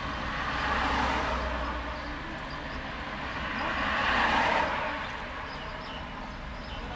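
City road traffic: two vehicles pass, their noise swelling and fading about a second in and again around four seconds, over a steady low rumble.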